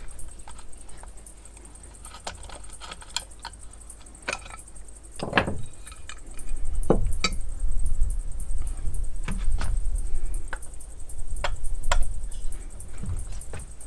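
Scattered clicks and knocks of small metal parts and hand tools being handled and set down on a tabletop while a chainsaw is taken apart. The knocks grow louder and more frequent about halfway through, with a low rumble underneath.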